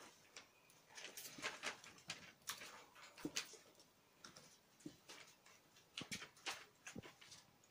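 Kittens' paws pattering and scrabbling across a sheet laid on the floor: a quiet, irregular run of light taps and scratchy rustles, with a couple of soft thumps as they pounce.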